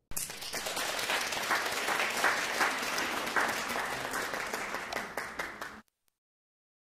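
Audience applause, many hands clapping together, cutting off abruptly near the end.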